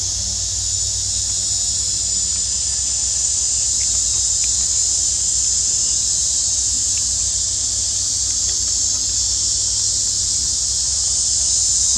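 Insects droning in a steady high-pitched chorus, with a low steady hum underneath.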